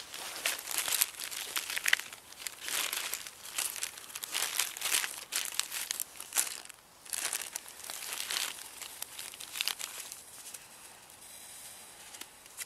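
Clear plastic bag crinkling as hands rummage through it and pull out a paper tea sachet, in a run of irregular rustles that ease off near the end.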